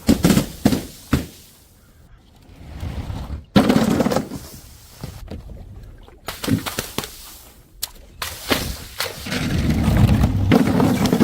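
A series of sharp smashing impacts: several quick hits in the first second, a sudden loud crash about three and a half seconds in, a cluster of hits around six to eight seconds, then a long dense crunching stretch from about eight and a half seconds on.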